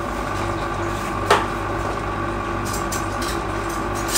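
Steady electric hum of a kitchen appliance motor, with a single sharp knock of something hard being set down about a second in and another at the very end.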